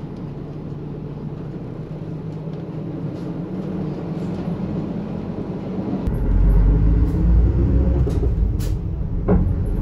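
Route bus engine noise: a steady low hum, then about six seconds in a louder, deeper engine sound heard from inside the bus cabin. A couple of short clicks come near the end.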